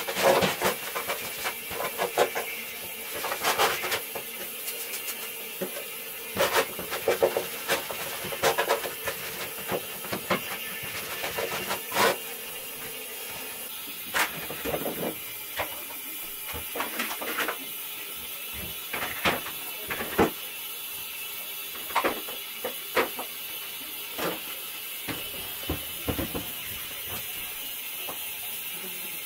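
Household cleaning and handling noises: irregular knocks and clicks of plastic containers and bottles being handled and set down, densest in the first half and thinning out near the end, over a steady hiss.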